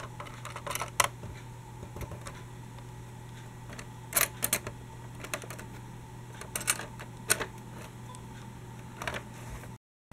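Dickie Toys City Liner toy tram rolling along a plastic track, its wheels giving irregular sharp clicks and clatters over the track joints, over a steady low hum. The sound cuts out abruptly near the end.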